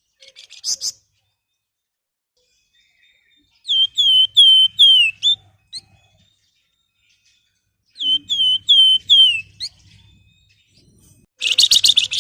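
Flamboyan (wergan Jawa) songbird singing: a whistled phrase of four clear, falling notes ending in a quick upslur, given twice. A short rapid chattering trill comes at the start and again near the end.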